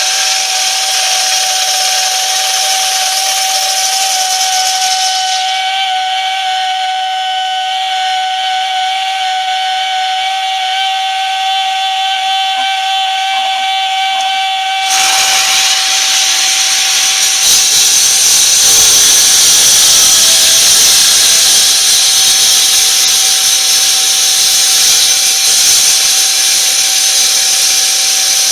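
Ryobi transfer pump running with a steady high-pitched whine as it feeds water to a wet-cut concrete saw. About halfway through, the Vevor 14-inch electric concrete saw comes in loud and keeps running over the whine.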